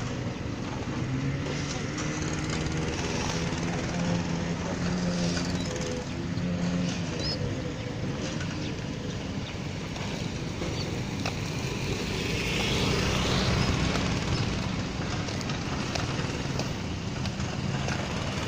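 A motor engine running steadily over general outdoor background noise, coming up and easing off twice.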